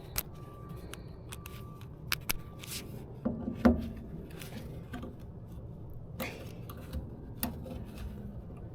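Scattered clicks, knocks and rustles of small parts and tools being handled, over a steady low hum.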